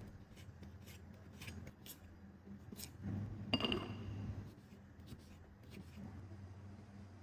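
Kitchen food-prep sounds: light scattered clicks of a knife cutting on a board, then about three seconds in a louder clatter with a brief ringing clink. A low electrical hum runs underneath.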